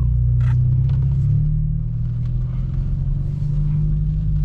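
Straight-piped BMW F30 328i's turbocharged four-cylinder running at low revs, a steady deep exhaust drone whose tone shifts slightly about a second in.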